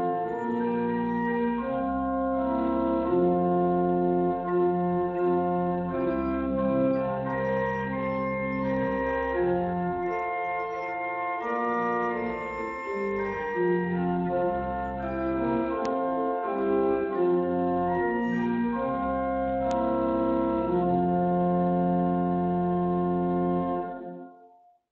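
Organ playing a postlude: sustained chords that change every second or two, ending on a long held final chord that dies away near the end.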